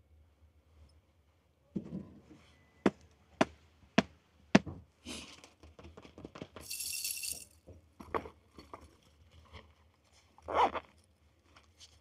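Handling noises as a pair of fleece-lined sneakers is picked up and moved about: four sharp knocks about half a second apart, rustling, a brief hiss midway, then a few more knocks and a rustling burst near the end.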